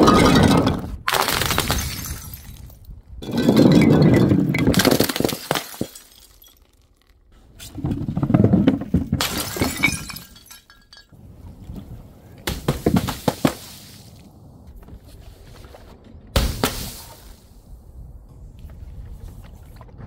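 Glass bottles and jars shattering one after another, about six separate smashes. Each break is a sudden crash followed by the crunch and tinkle of falling shards.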